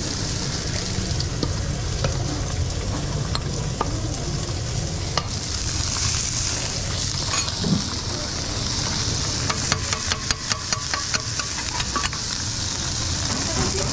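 Rice and vegetables sizzling on a flat-top griddle, a steady hiss. About ten seconds in, metal spatulas clack against the griddle plate in a quick run of sharp taps for a couple of seconds.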